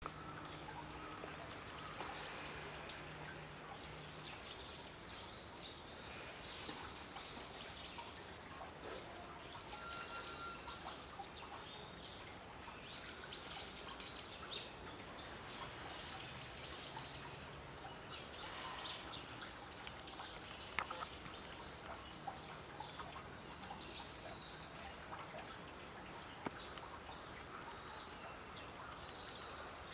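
Quiet outdoor ambience with small birds chirping again and again in short, high calls, and a faint low hum over the first few seconds.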